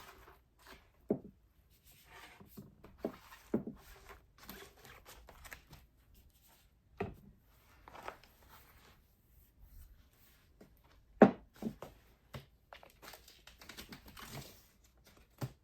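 Plastic window film crinkling and rustling as it is handled and cut to size, with scattered light knocks on the work surface. The sharpest knock comes about 11 seconds in.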